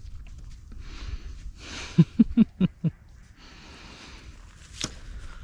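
A man breathing out heavily, with a quick run of five short chuckles about two seconds in and one sharp click near the end.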